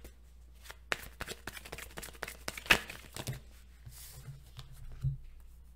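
Tarot cards being shuffled and handled: irregular quick card flicks and papery rustles, the sharpest snap nearly three seconds in.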